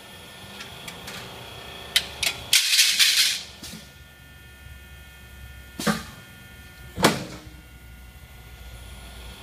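Slip-and-drive cleat rollformer running with a steady hum, broken by sharp metallic clacks: two quick clicks and a louder clattering rush about two to three seconds in, then two single clacks about six and seven seconds in, as the formed steel cleats are cut off and leave the machine.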